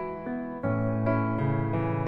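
Background music on a keyboard: sustained notes and chords, with a lower bass note coming in about half a second in.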